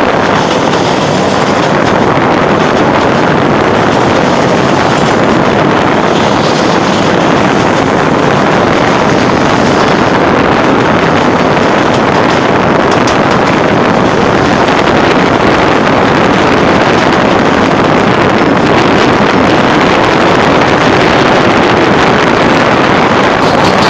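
Loud, steady rushing of wind buffeting the microphone, with the running noise of the moving narrow-gauge train mixed into it.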